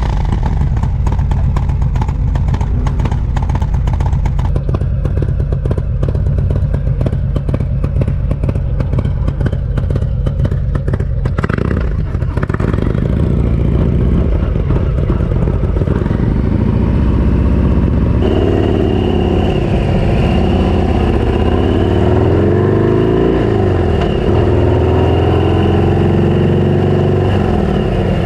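Custom Harley-Davidson Low Rider S motorcycle with a 131 cubic inch Milwaukee-Eight V-twin and S&S Super Street 2-into-1 race exhaust, running under way. The engine note is steady for about the first half, then rises and falls repeatedly with the throttle.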